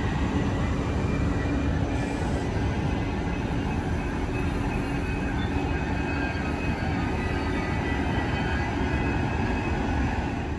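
Deutsche Bahn ICE high-speed train rolling past close by: a steady rumble of wheels on rails with a faint hum.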